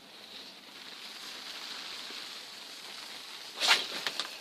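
A small ground firework hissing steadily once lit, with a brief louder burst of noise near the end.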